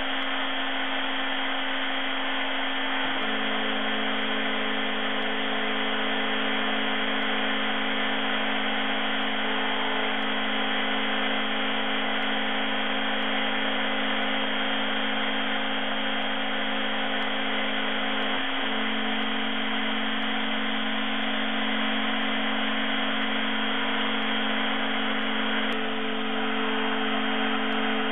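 Desktop CNC mill spindle running steadily while a 3 mm ball-nose cutter takes a roughing pass in a slowly rotating block: an even whine over a hiss. Its tone shifts slightly a few times: about three seconds in, past the middle, and near the end.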